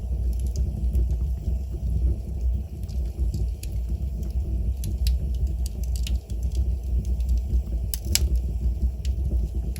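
Wood fire burning in a fireplace: a steady low rumble of flames with scattered sharp crackles and pops from the burning wood, one louder pop about eight seconds in.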